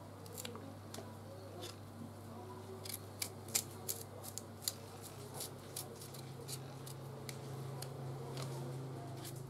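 Small knife peeling the skin off a hard unripe mango: a run of short, irregular scraping cuts. A low steady hum sits underneath.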